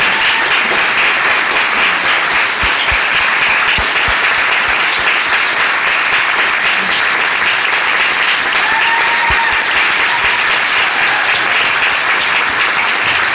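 Audience applauding steadily: dense, continuous clapping from a seated crowd.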